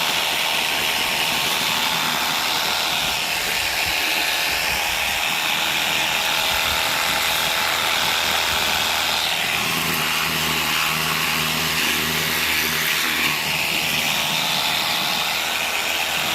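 Pressure washer running, its motor whirring under a steady hiss of spraying water that swells and fades as the jet moves.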